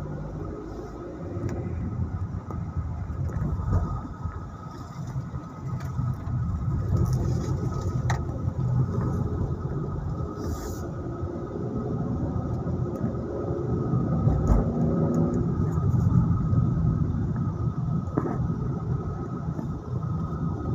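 Car engine and tyre rumble heard from inside the cabin while driving, the engine note rising and falling as the car speeds up and slows.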